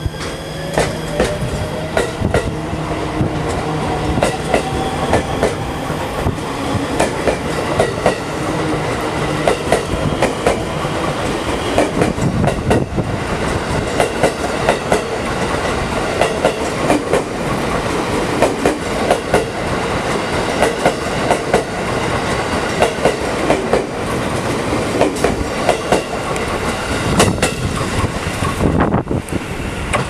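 Special Rapid electric multiple-unit train pulling out of the station and passing close by. Its motors give a whine that rises in pitch over the first several seconds, then there is a fast, steady clickety-clack of wheels over rail joints as car after car goes by.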